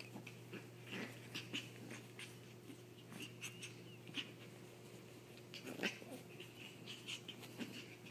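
Two small fluffy dogs play-wrestling on a quilted blanket: faint scattered breaths, huffs and scuffles of paws and fur against fabric, with one louder huff about six seconds in.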